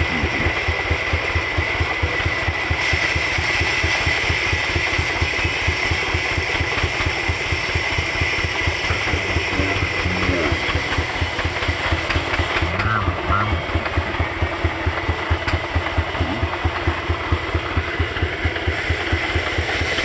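Old Petter diesel stationary engine running steadily under load, its exhaust beating at about five thumps a second, while it drives a band saw; a steady high whine sits over the beat.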